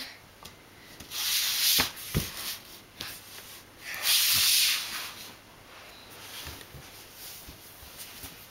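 Two short rubbing, scuffing noises, the first about a second in and the second about four seconds in, with a couple of light knocks between them.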